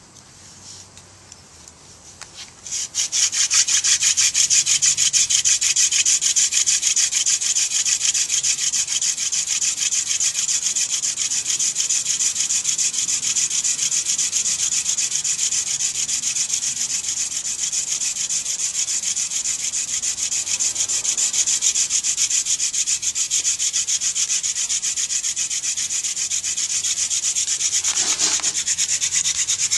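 Hand-drill friction fire: a blue vervain spindle twisting back and forth in a cedar hearth board, a fast, even rubbing rasp of wood on wood. It starts about three seconds in and keeps up steadily, with a brief change in the strokes near the end.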